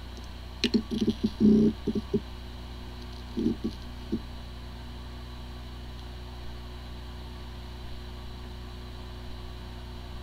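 Hard drive running with a steady spindle hum, with a cluster of short ticks and rattles about a second in and a few more around three and a half seconds. It sounds like a healthy drive, but its firmware is corrupted, so the computer cannot detect it.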